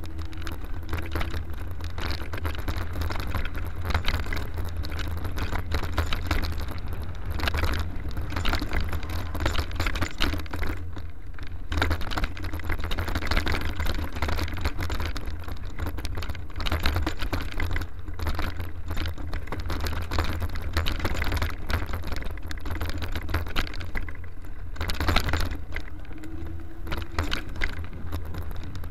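Mountain bike ridden fast over a rough dirt trail: steady, uneven clattering and rattling of the bike over the bumps, with a low rumble underneath.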